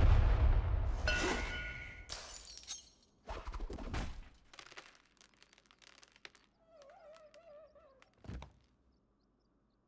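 Designed film sound effects of a violent struggle: a loud crash fading out, then breaking and shattering about two seconds in, a second heavy hit, scattered small clatters, and a final thud about eight seconds in before it goes silent.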